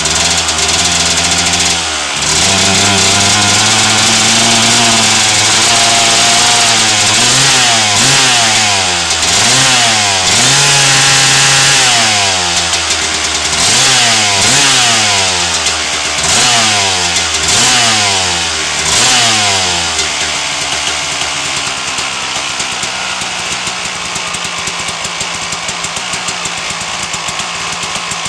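1997 Suzuki RM250's single-cylinder two-stroke engine running. It is revved up and down again and again, about eight blips, then drops back to a steady idle about 20 seconds in.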